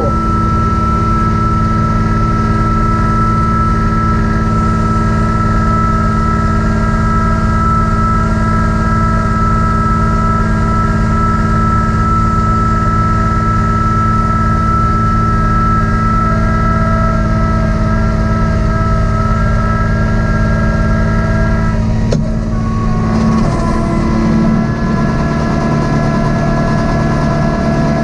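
Kubota B2650 compact tractor's three-cylinder diesel running at a steady speed, with a steady high tone over it. About 22 seconds in there is a click, and the engine's tone shifts to a new steady note.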